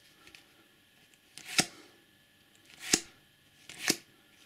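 Topps Cricket Attax trading cards being flipped through one at a time by hand: three crisp card flicks about a second apart, starting about one and a half seconds in, each a short rising swish that ends in a sharp snap.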